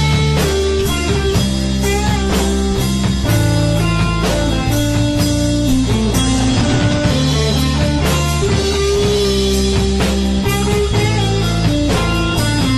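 Instrumental rock music: guitar lines over bass and a steady drum-kit beat, with no singing.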